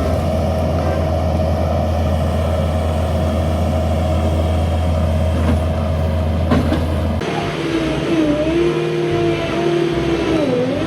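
Skid steer loader's engine running steadily with a low hum. About seven seconds in the sound cuts abruptly to another take of the machine working, its engine pitch wavering, then dipping and recovering near the end.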